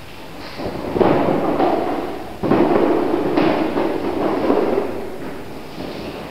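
Stacked boxes being pushed and shifted at the base of a tall tower, a series of low rumbling thuds that each ring on in a large empty hall. The strongest start about a second in and again at about two and a half and three and a half seconds in.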